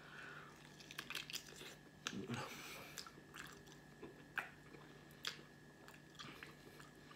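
A person chewing a bite of pork sausage with sauce: soft, irregular mouth clicks and smacks.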